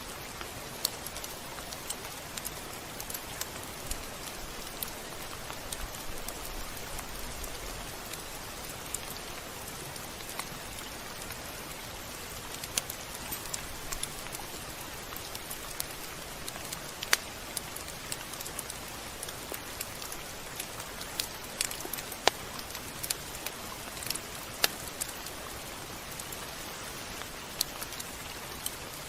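Steady rain: a constant hiss with scattered sharp ticks of individual drops striking a surface, a few of them louder.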